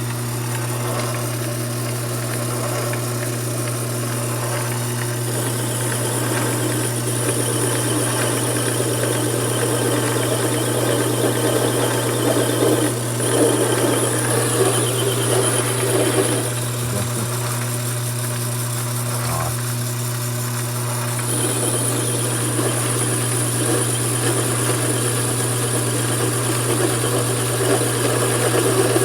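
Mini lathe running steadily with a constant motor hum; a thin high whine comes in for two stretches, and the sound gets louder and busier for several seconds in the middle.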